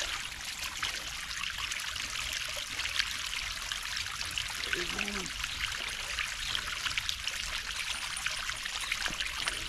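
Water trickling and running out over the open top of a sand pool filter tank whose valve head has been lifted off, with water still coming back in from the pool's plumbing. It is a steady, even trickle.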